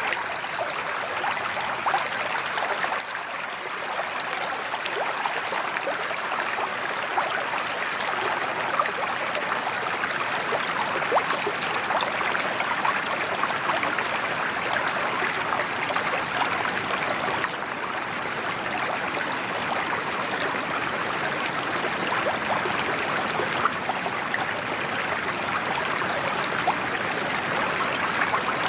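Water from a sheet waterfall pouring steadily into a koi pond, a constant splashing rush with small spatters throughout.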